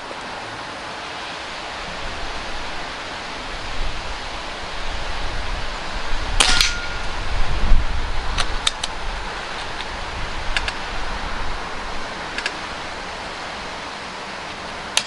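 Custom Kral Puncher NP-02 .177 pre-charged pneumatic air rifle being shot and worked: a sharp crack at the very start and again at the very end, a louder double metallic clack about six and a half seconds in, and a few lighter clicks after it. Under it runs steady wind noise on the microphone, gusting in the middle.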